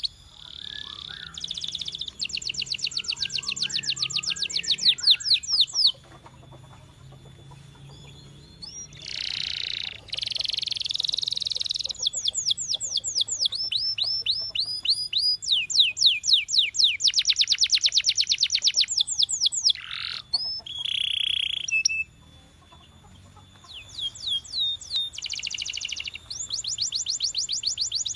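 Canary singing in fast trilled runs of rapidly repeated high notes, one run after another, with a few seconds' pause about six seconds in and again past twenty seconds.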